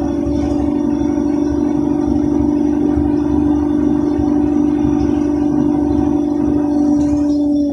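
Inside a moving Solaris Urbino 10 III city bus: engine and road noise with a steady, high, constant hum. The upper hiss thins out near the end.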